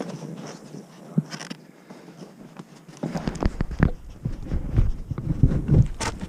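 Rustling and light knocking of hands working at a beehive. About three seconds in, heavy low rumbling thumps set in, and a sharp click comes near the end.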